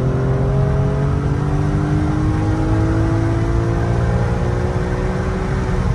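BMW E46 M3's S54 straight-six engine pulling hard under acceleration, its pitch climbing slowly and steadily over heavy road and wind noise, with a brief dip near the end.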